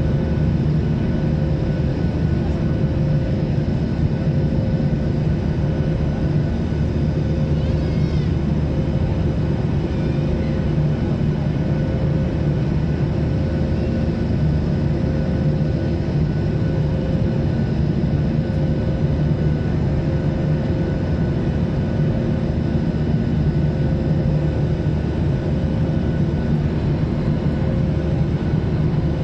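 Jet airliner cabin noise from a seat over the wing: the underwing jet engines and the airflow make a steady, even drone with a low hum, a faint pulsing tone and a thin high tone running through it.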